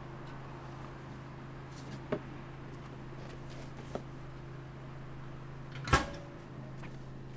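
Parcel-locker compartment door pushed shut with one sharp, loud clack near the end, after two light knocks as the parcel is handled. A steady low hum runs underneath.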